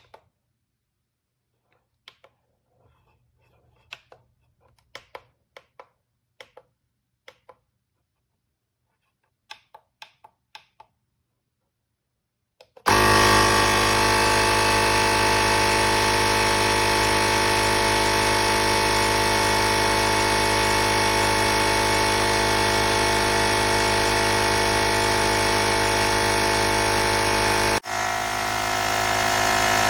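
A few faint clicks and taps, then, a little under halfway through, the built-in tire-inflator air compressor of an ANFLAG portable jump starter switches on suddenly and runs steadily and loudly, dropping out for an instant near the end before running on.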